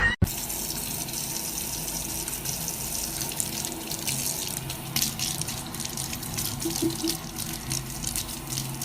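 Water running steadily, as from a tap into a sink, with a few faint clicks.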